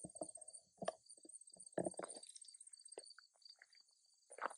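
Faint scattered footsteps and rustles as someone walks over gravel and grass. Behind them runs a steady high-pitched chirring of insects in rapid even pulses.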